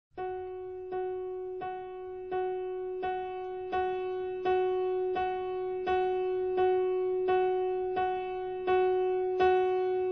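Soundtrack music: a piano striking one single note over and over in a steady pulse, a little more than once a second, growing gradually louder.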